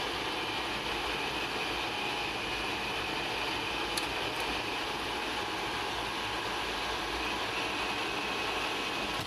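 Steady roar of an A-10 Thunderbolt II's twin General Electric TF34 turbofans and rushing air inside the cockpit, with a faint high whine. A small click comes about four seconds in.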